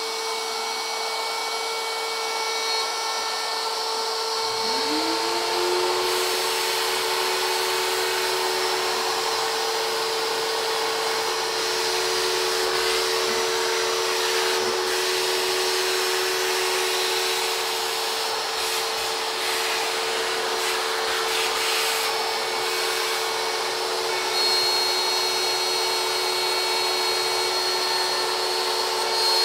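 Shapeoko CNC router running steadily, its spindle whining as a 6 mm single-flute end mill cuts a profile in aluminium plate. About four and a half seconds in, a second motor spins up and keeps running alongside: a shop vacuum clearing the chips.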